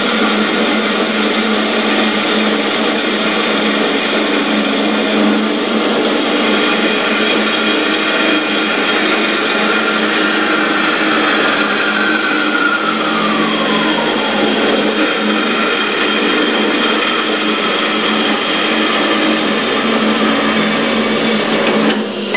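Carolina horizontal metal-cutting band saw running with its blade cutting through square steel tubing under a heavy feed, a steady motor hum and blade noise. About halfway through a whine slides down in pitch, and the sound dips briefly just before the end as the cut finishes.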